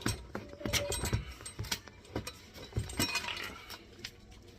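Irregular metal knocks and clinks from tapping out the dishwasher-inlet knockout plug on a new garbage disposal, with brief metallic ringing around the middle.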